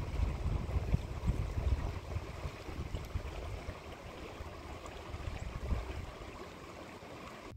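Shallow creek running over a stony bed: a steady rush of water, with an uneven low rumble beneath it.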